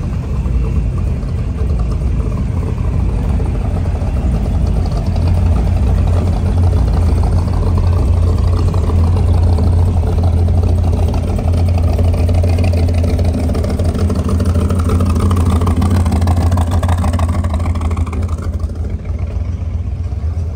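Pickup truck engines running close by at low speed: a steady low rumble that swells in the middle and eases off near the end.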